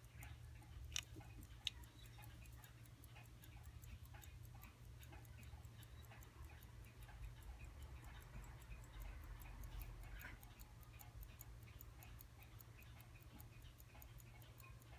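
Mechanical pocket watch ticking faintly and evenly, about five ticks a second, with two louder clicks about a second in.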